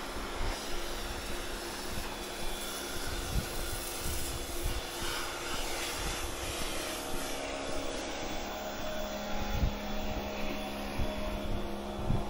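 A steady motor drone made of several held tones, with a higher set of tones joining about seven seconds in, over irregular low bumps.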